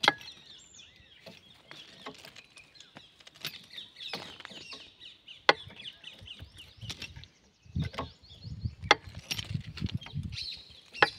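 Sharp metallic taps and clicks, a few seconds apart, as a hand tool knocks against the steel fittings of a railway switch, with birds chirping throughout. A low scuffing noise joins in for the last few seconds.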